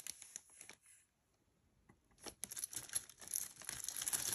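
Crinkling and rustling of packaging being handled, with a few light clicks at first and a short quiet gap about a second in. The crinkling picks up again and thickens near the end.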